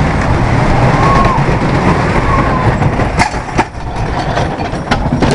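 Roller coaster train running along its track, heard from a seat on board: a steady loud rumble and rattle of the wheels, with a few sharp knocks.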